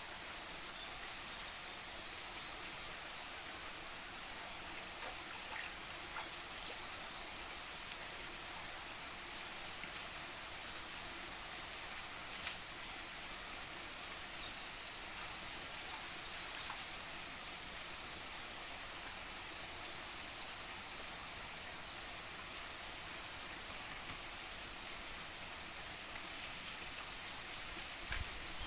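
Steady high-pitched chorus of forest insects droning without a break.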